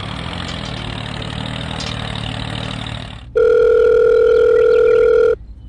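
A tractor engine running steadily, then a loud, steady telephone ringing tone that holds for about two seconds and stops suddenly.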